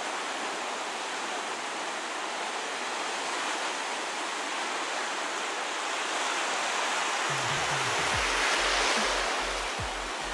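Ocean surf washing in and breaking on the beach, swelling louder as a wave breaks near the end. About seven seconds in, background music with a pulsing bass beat comes in under the surf.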